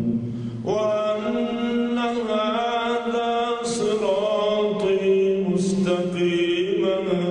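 An elderly imam's voice reciting the Quran aloud in a slow, melodic chant. A new phrase starts under a second in, with long drawn-out notes that shift slowly in pitch.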